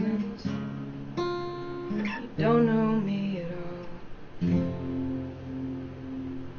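Acoustic guitar strumming the closing chords of a song, a handful of separate strums with a last chord struck about four and a half seconds in and left to ring.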